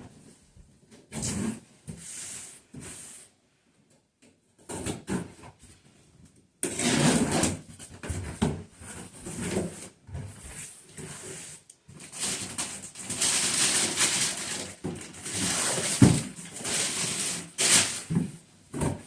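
A cardboard box being opened and its contents and packing handled: bursts of rustling, scraping and tearing, with a sharp knock about 16 seconds in.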